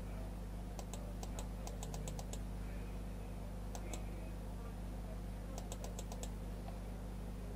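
Computer mouse clicking in quick runs: a string of clicks about a second in, two around four seconds, and another string around six seconds. A steady low electrical hum runs underneath.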